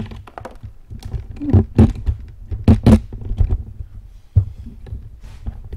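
Handling noise from a hand-held camera: irregular thumps, knocks and rubbing against the microphone over a low rumble, with a cluster of loud knocks in the middle as the camera is moved around the engine bay.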